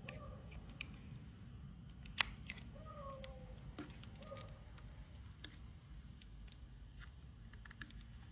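Scattered small plastic clicks and taps from a 9-volt battery being fitted into a battery holder, with one sharper click about two seconds in. Three short, faint pitched squeaks or calls come near the start, about three seconds in and about four seconds in.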